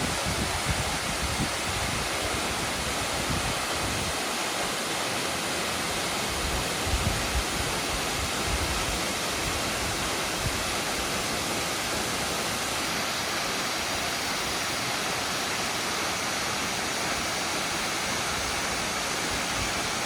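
Waterfall: a steady, even rush of falling water, with some uneven low rumbling in the first few seconds.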